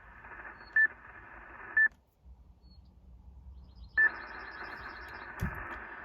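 Yaesu FT-857 transceiver's speaker giving out band hiss, with three short beeps from its front-panel keys. The receiver audio cuts out for about two seconds in the middle, then comes back, as the radio changes band and the ATAS-120A antenna tunes.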